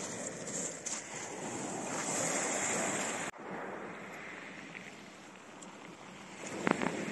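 Small sea waves washing over a pebble shore, a steady rushing that stops abruptly about three seconds in. A quieter airy hiss follows, with a few sharp crackles near the end.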